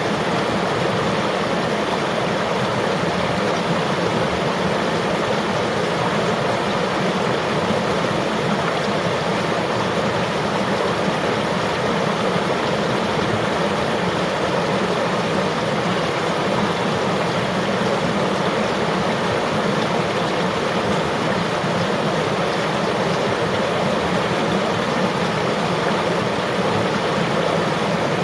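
River water flowing and rushing in a steady, unbroken wash of sound.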